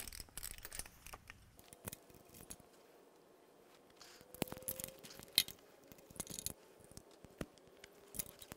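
Spark plug socket and extension clicking and clinking against the cast-iron exhaust manifold of a Ford 302 V8 as the tight spark plugs are loosened and drawn out: faint, scattered small metallic clicks, one sharper clink about halfway through.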